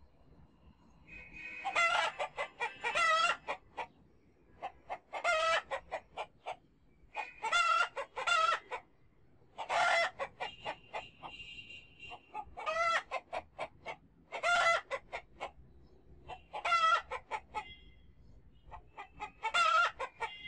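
Chickens calling in repeated bursts of rapid harsh clucks, about eight bursts, one every two to three seconds.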